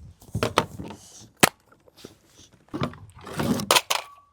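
Sharp plastic clicks and clatter from small toy guns being handled and fired, with rustling between the clicks. The loudest click comes about a second and a half in, and two more come close together near the end.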